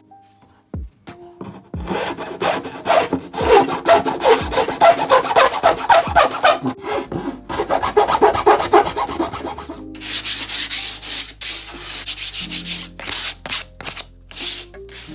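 Sandpaper rubbing on wood in quick, irregular back-and-forth strokes, starting about two seconds in. The strokes turn hissier and brighter about two thirds of the way through.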